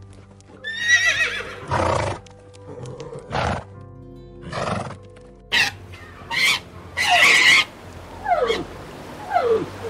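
Horses neighing over soft piano music, with several whinnies in the first half. From about halfway through, a run of shorter calls from king penguins takes over, the loudest near the end of that stretch and several sliding down in pitch.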